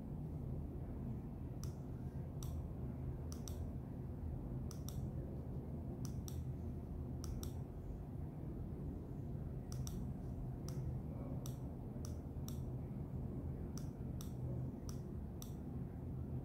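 Apple Magic Mouse clicked repeatedly with a fingertip, sharp clicks, many in close pairs of press and release, at an irregular pace with a pause of about two seconds midway. A steady low hum runs underneath.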